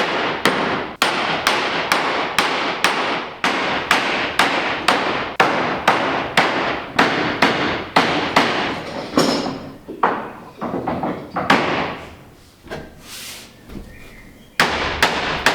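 Hammer blows on a wooden tongue-and-groove bulwark plank, knocking it home into its groove: a fast, steady run of sharp strikes about two a second, then slower, spaced-out blows after about nine seconds, with a final few near the end.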